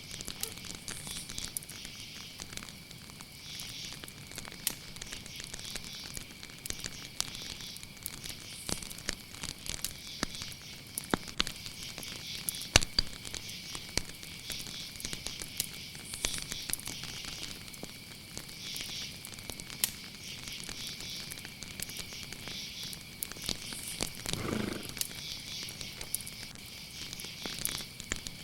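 Campfire crackling with scattered sharp pops, over a steady high chirring of crickets. A brief lower sound comes near the end.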